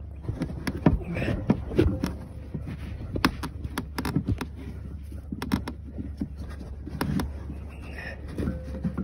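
A new cogged rubber drive belt being worked by hand around a snowmobile's clutch: irregular clicks and knocks of the belt against the clutch and housing, with rustling of a jacket sleeve, over a steady low hum.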